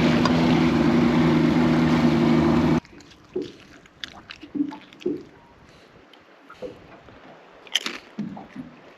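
Boat engine running steadily, with wind rushing past, then cut off suddenly about three seconds in. After that come scattered small clicks and soft knocks.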